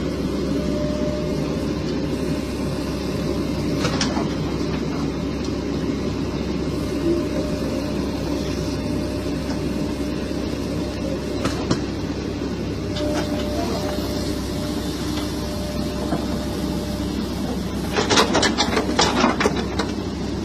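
Heavy machinery running steadily, with a few single knocks and a burst of rattling clatter near the end.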